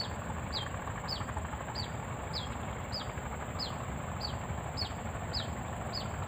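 A bird repeating a short falling whistle about once every half second or so, over a steady high-pitched whine and a low rushing background noise.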